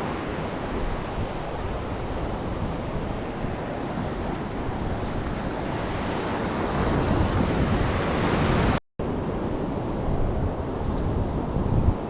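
Ocean surf washing onto a beach, a steady rush with wind buffeting the microphone; a wave surge builds up about two thirds of the way in, and the sound cuts out for an instant just after.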